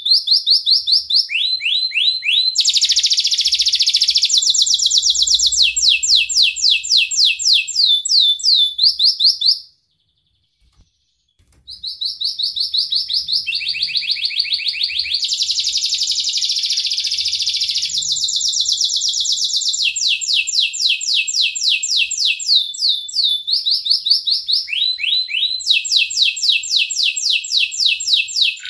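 Domestic canary singing a long, fast song made of rapid trills, each phrase a quick run of repeated notes that switches to a new pitch every second or two. The song breaks off for about two seconds near the middle, then carries on.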